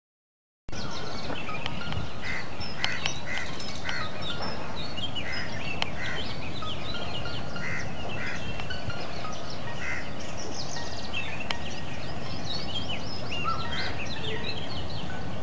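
Outdoor bird chorus: many small birds chirping with quick falling notes, and short repeated calls every second or so, over a steady background hiss.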